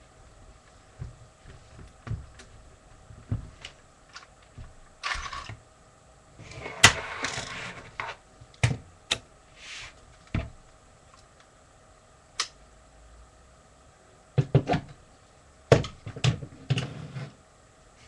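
Lego plastic pieces clicking, knocking and rattling as they are handled, with a few short scraping stretches and a quick run of clicks near the end.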